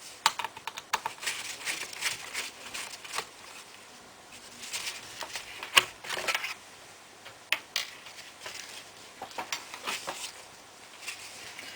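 Irregular small clicks, taps and short scrapes of a screwdriver and loose screws against a laptop's plastic case while screws are taken out, with one sharper click about six seconds in.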